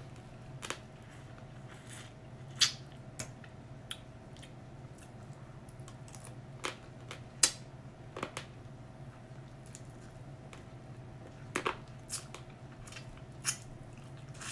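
Mouth sounds of someone eating lobster with her fingers: scattered sharp lip smacks and sucking clicks as she works the meat out of the shell, over a faint steady hum.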